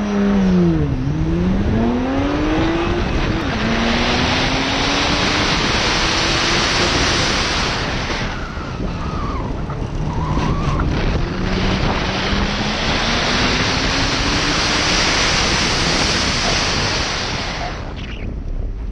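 BMW 1M Coupe's twin-turbo straight-six accelerating hard, its pitch climbing and dropping back at two quick upshifts and then rising slowly, over heavy wind rush on the microphone. About halfway through, the engine note drops and tyres squeal briefly through a turn, then it pulls again before engine and wind die away near the end as the car brakes to a stop.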